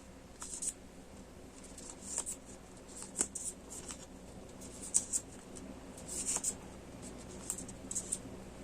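Hands handling stationery packaging: irregular short rustles and light taps of paper and plastic, a few a second at the busiest moments.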